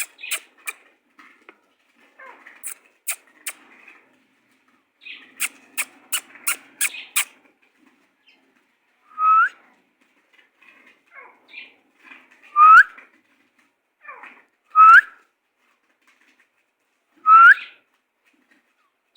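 Pet bird giving four loud, short whistles that each rise sharply in pitch, a few seconds apart, after a run of sharp clicks and soft chirps.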